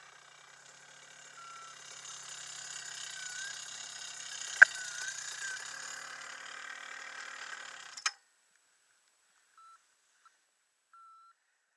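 Paramotor's small engine running at idle with a rattling mechanical noise and a sharp click about halfway through, then cutting off abruptly about eight seconds in as its air intake is blocked to stop it.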